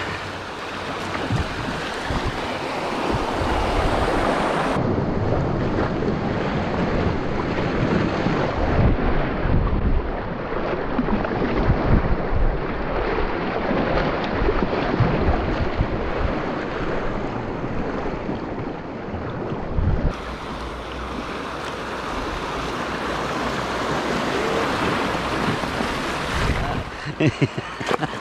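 Fast river water rushing over a shallow rapid as a kayak runs through it, with wind buffeting the microphone.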